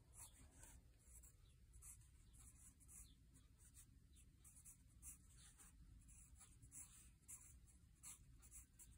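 Faint scratching of a graphite pencil on graph paper: short, irregular strokes as small numbers are written one after another.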